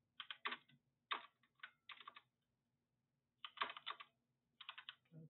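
Typing on a computer keyboard: quick runs of keystrokes in short bursts, with a pause of about a second midway.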